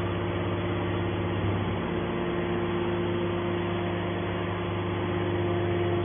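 TCM hydraulic scrap-metal baler's hydraulic power unit running with a steady hum while its cylinder swings the press lid open. The hum grows slightly louder near the end.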